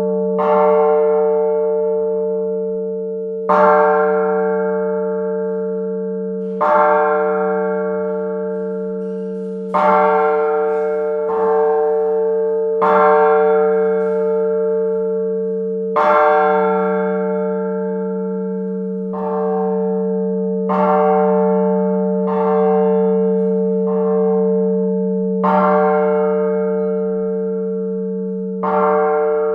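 San Marco's La Piagnona church bell tolling, struck by its clapper about every one and a half to three seconds, some strokes heavier than others. Its low hum rings on without a break between the strokes.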